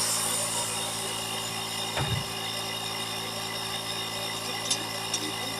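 Small portable air compressor running steadily, with a motor hum, as it inflates a newly mounted tire the rest of the way. A single thump about two seconds in and two light clicks near the end.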